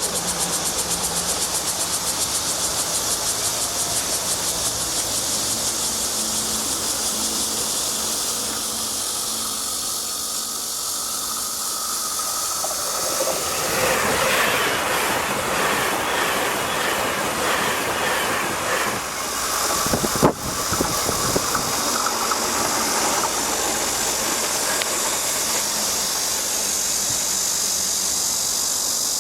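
Taiwan Railways TEMU2000 Puyuma tilting electric train passing, its rolling noise swelling about halfway through and easing off several seconds later, with a sharp knock near its loudest point. A steady high insect buzz runs underneath throughout.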